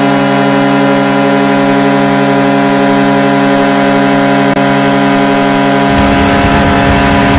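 Hockey arena goal horn sounding one long, steady chord. About six seconds in, the goal song's music comes in underneath while the horn keeps sounding.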